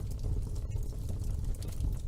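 Wood fire burning in a fireplace: a low rumble of flames with many small, irregular crackles and pops.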